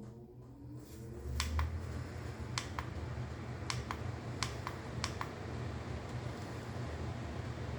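LG window air conditioner starting up: a rising whir as it spins up in the first second, then a steady low hum as it runs, called on by the wall thermostat. Sharp clicks, mostly in pairs, come through it between about one and five seconds in.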